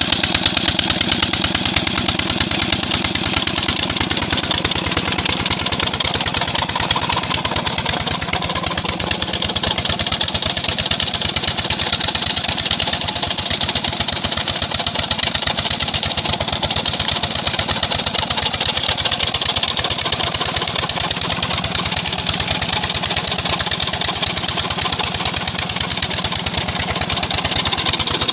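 SD 20 hp Chinese diesel engine running steadily under load, driving a flat belt to a tube-well water pump.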